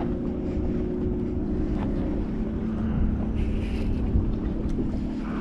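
Wind buffeting the microphone, with a steady motor hum underneath that drops in pitch about two seconds in.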